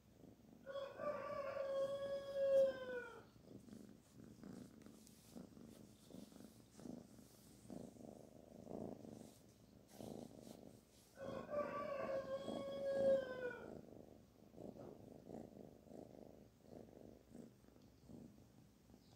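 Kitten purring softly while being stroked, a low pulsing murmur. Two long drawn-out calls, each about two and a half seconds and about ten seconds apart, stand out as the loudest sounds.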